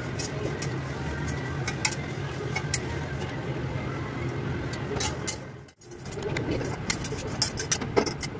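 Flat steel spatula scraping and stirring dry grains in an iron kadhai while dry-roasting them, giving irregular sharp scrapes and grain rattle over a steady low hum. The sound drops out abruptly for a moment about two-thirds of the way in, then the scraping and clicking go on.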